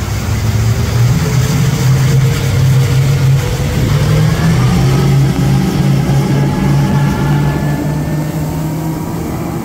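Twin Mercury outboard motors running hard under way, with a steady low drone and a thin whine that climbs slowly in pitch as the boat gathers speed. The rush of the churning wake runs underneath.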